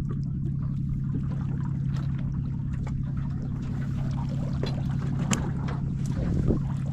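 Boat engine idling with a steady low hum while the boat drifts, with a couple of sharp clicks near the end.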